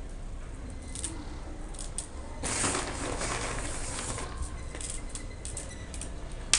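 Small coloured pebbles clicking and rattling as they are handled, with a louder rustling stretch of about a second and a half beginning about two and a half seconds in.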